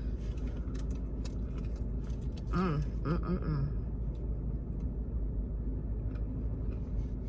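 Steady low rumble of a parked car with its engine running, heard from inside the cabin, with a faint steady hum over it.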